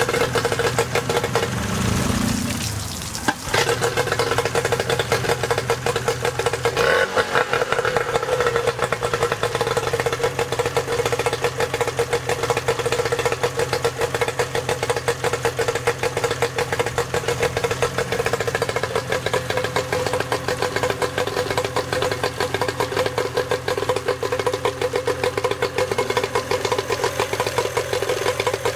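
Nissan 9.9 hp twin-cylinder two-stroke outboard running on a flushing stand. After a brief dip about three seconds in, it holds a steady idle with a fast, even firing beat.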